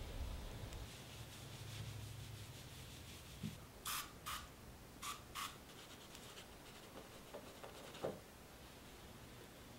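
A sponge rubbing along the edge of a wooden table top: four short scratchy strokes in two pairs, about four to five and a half seconds in, then a single soft knock about eight seconds in.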